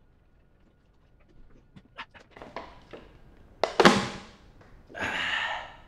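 Faint mouth clicks of chewing, then a sharp clatter as a plastic water bottle lands on a metal tray, followed a second later by a short breathy rush of air.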